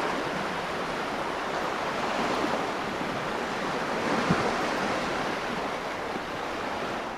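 Ocean surf: a steady wash of sea waves, swelling slightly about four seconds in.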